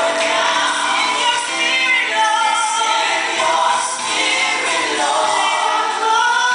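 Gospel music: a choir singing a slow song with long held notes that glide up and down.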